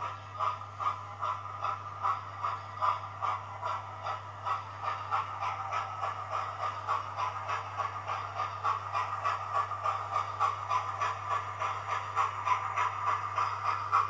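Hornby TTS sound decoder in a model P2 2-8-2 steam locomotive, its speaker playing steam exhaust chuffs in a steady rhythm that quickens and grows louder as the locomotive gathers speed.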